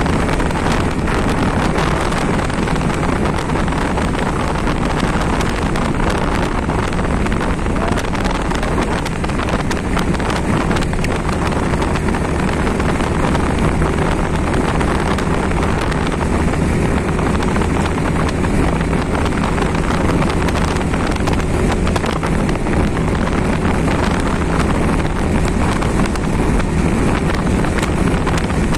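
Steady wind rush on the microphone of a moving motorbike, with the bike's engine and road noise underneath.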